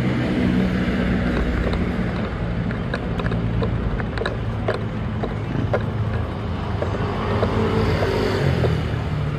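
Road traffic with engines running, mixed with wind buffeting the microphone of a moving bicycle camera, and a few scattered light clicks and rattles.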